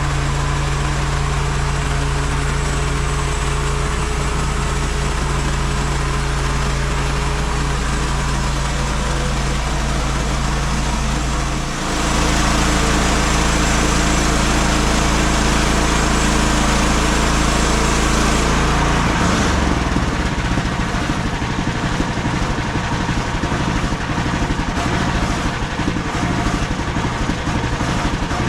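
MechMaxx SM32 band sawmill's gas engine running loud and steady. About twelve seconds in it dips briefly and picks up brighter, and about two-thirds through it turns rougher and more uneven.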